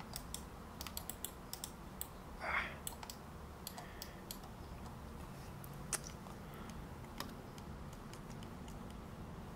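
Faint clicking of a computer keyboard and mouse: a quick run of light taps in the first two seconds, more around four seconds, and a single louder click near six seconds, over a low steady hum.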